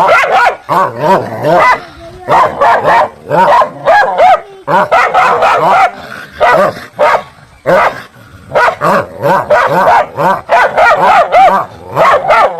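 Dogs barking loudly in rapid runs of short barks, with brief pauses between the runs.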